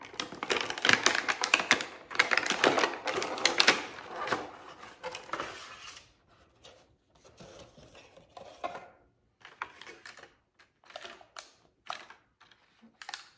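Cardboard box being opened and a clear plastic clamshell tray pulled out and handled: dense crinkling and crackling for about the first six seconds, then scattered crackles and clicks of the plastic.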